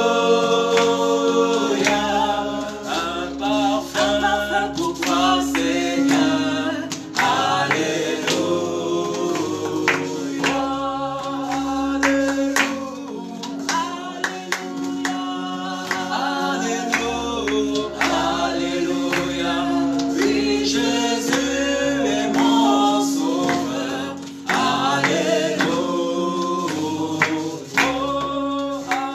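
A small group singing a gospel worship song together, with hand clapping and acoustic guitar accompaniment.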